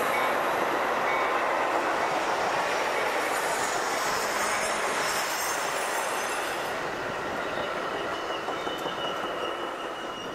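Metra commuter train's stainless-steel bilevel passenger cars rolling past: a steady rush of wheels on rail, slowly fading as the last cars go by.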